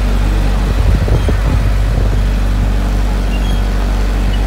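Engine of a large vehicle running steadily at low road speed, heard from on board, with a low hum and a few brief knocks about a second in.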